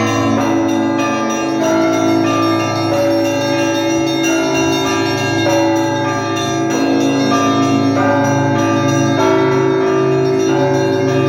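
Russian Orthodox church bells rung by a bell ringer for a festive liturgy: several bells struck in a continuous pattern, the strikes overlapping and their tones ringing on over a steady low hum from the larger bells.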